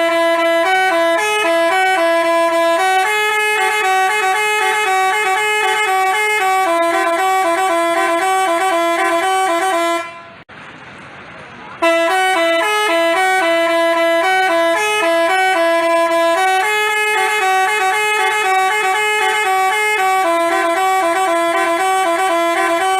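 Basuri musical telolet horn playing a stepping melody of about ten seconds, stopping briefly about ten seconds in, then playing the same tune again.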